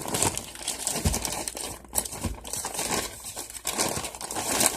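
A bag of brown sugar crinkling and rustling as it is handled and a handful is taken out of it.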